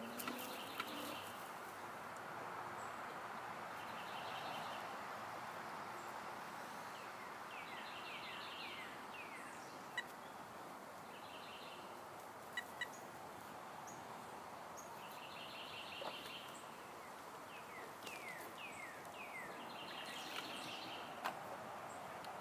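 A songbird singing the same short phrase about every four seconds: a few quick down-slurred whistles followed by a rapid trill. A steady hiss of background noise runs beneath it.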